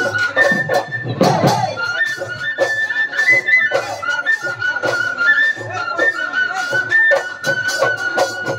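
Live Assamese Bihu folk music: a high wind-instrument melody moving up and down in steps, over steady dhol drum beats.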